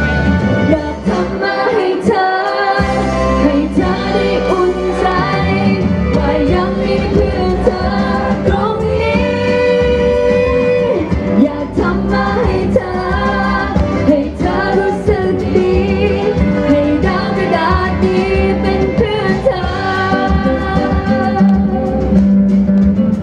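A woman singing a Thai song live into a microphone over instrumental accompaniment, both amplified through a PA.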